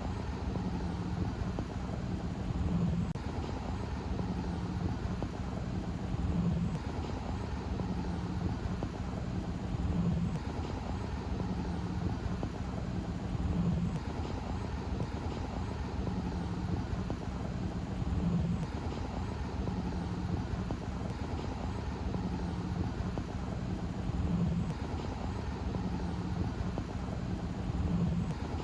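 An engine running steadily at an even speed, swelling slightly in level about every three to four seconds.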